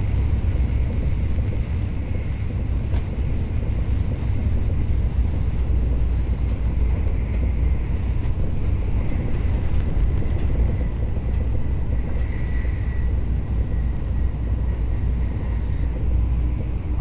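Shinkansen bullet train running at speed, heard from inside the passenger cabin: a steady low rumble with a faint thin whine above it.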